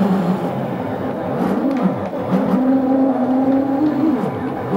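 Stepper motors of a 3D-printed six-axis robot arm whining as the joints move under gamepad control. The pitch slides up and down as the motors speed up and slow down, holding steadier for a couple of seconds in the second half.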